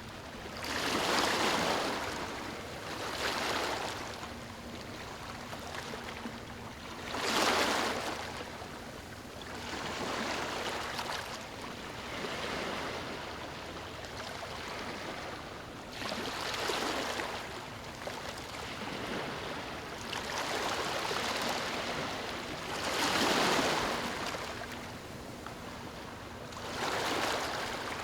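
Small waves lapping and washing onto a beach, each wave a swelling hiss that breaks and fades, arriving every few seconds over a steady wash of water.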